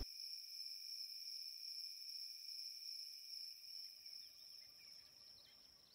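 Crickets chirping steadily, faint, fading out near the end.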